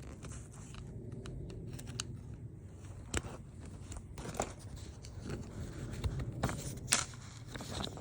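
Handling noises: scattered small clicks and knocks over a low scuffing as the sawn-through ends of an old luggage wheel are worked off its axle.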